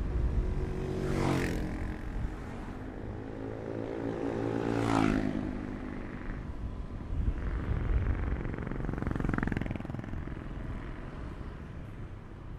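Motor scooter running along a road, with engine and wind noise from the ride. Two other vehicles pass close by, about a second and about five seconds in, their engine note rising and then dropping away.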